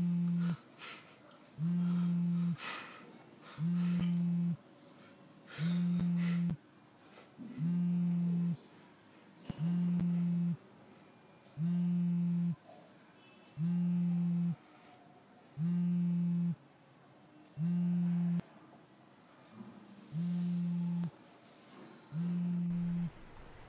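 Telephone ringing tone heard over a mobile phone: a low steady beep about a second long, repeating every two seconds, about a dozen times with no answer.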